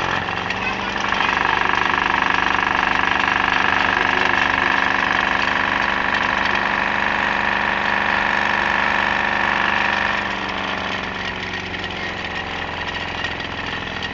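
Electric bench grinder motor, fitted with a dimmer speed control, running free with a steady whine. It swells over the first second as the speed knob is turned up, then drops in loudness and pitch about ten seconds in as the knob is turned down.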